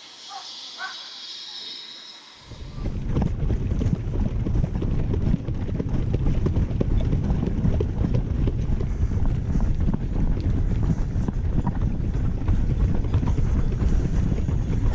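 A faint high hiss, then about two and a half seconds in a loud, gusty low rumble of wind buffeting the microphone starts suddenly and keeps on.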